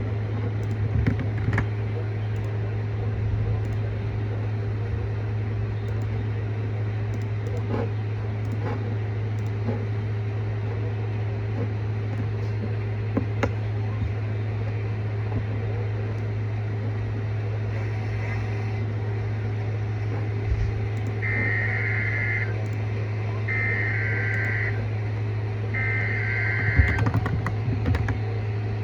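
Weather radio station on a poor signal: a steady loud hum with scattered crackles of static. Near the end come three short bursts of warbling digital data tones with brief gaps between them, the SAME header that comes before an alert's attention tone.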